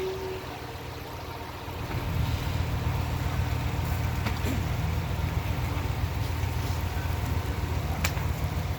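Off-road 4x4's engine running, throttle coming on about two seconds in and held steady under load on a rock-crawling climb. A single sharp click near the end.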